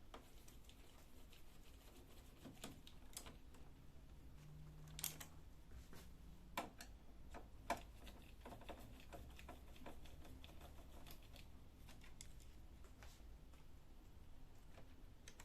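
Faint, scattered clicks and small knocks of a screwdriver taking screws out of a laser printer's plastic rear casing.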